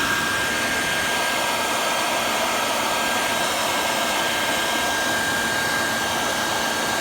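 Philips hair dryer running steadily: the rush of blown air with a thin, even high whine from the motor.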